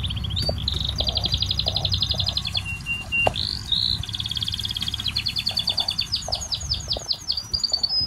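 A small songbird singing two long runs of rapid, high chirping trills, the second loosening into separate notes near the end, over a low steady rumble.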